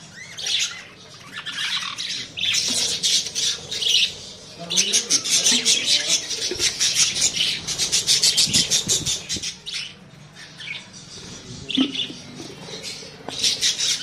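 A colony of budgerigars chattering and squawking, in rapid scratchy bursts that come and go, with lulls about a second in and again about ten seconds in.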